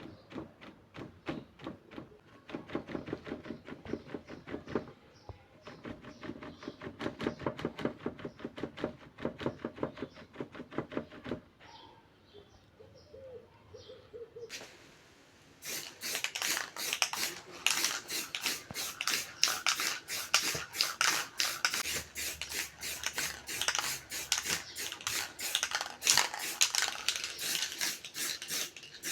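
Rapid rhythmic clicking and rattling strokes, several a second, from hand work on the PC case. A quieter pause comes a little before halfway, then a louder, brighter run of strokes.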